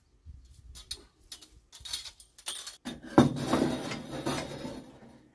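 Metal clinking and rattling as a steel bandsaw blade is handled during a blade change on a Norwood HD36 sawmill: scattered light clicks, then a louder, longer scraping rattle about three seconds in.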